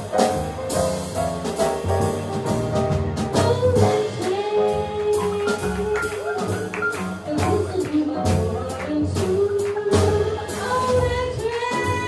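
Live jazz combo: a woman singing into a microphone over upright bass, piano and drum kit, with cymbal strokes keeping time.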